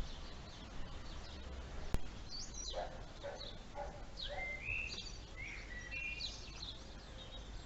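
Wild songbirds calling and singing: a string of short chirps and whistles, some sliding in pitch, over a low steady rumble, with one sharp click about two seconds in.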